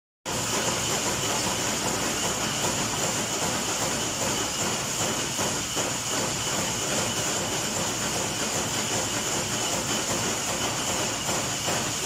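Stamping-press line of mechanical punch presses and strip feeders running: a steady, dense machinery din with a high whine through it and no distinct single strokes standing out.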